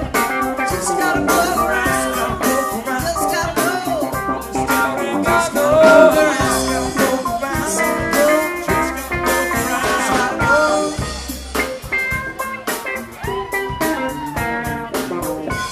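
Live rock band playing an instrumental jam: electric guitar lead with bent notes over bass, drums and keyboards.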